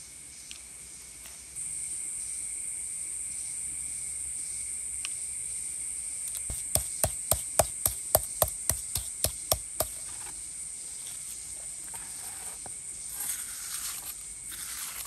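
A hand-held stone pounding dark lumps in a hollowed stone block, about a dozen sharp knocks at roughly three to four a second, crushing them to powder. It is followed near the end by rougher scraping as the powder is worked by hand. A steady, high insect drone runs underneath.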